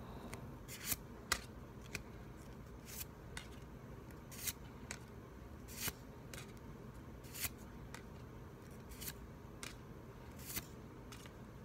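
Pokémon trading cards slid one at a time from the back of a freshly opened pack's stack to the front: a faint series of short, crisp card swipes, irregular, roughly one a second.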